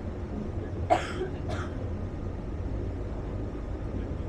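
A person coughs twice in quick succession about a second in, over the steady low rumble of the tour boat's engine.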